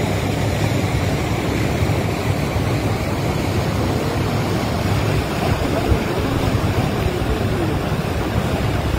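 Floodwater of a swollen river rushing past in a steady, loud, continuous rush.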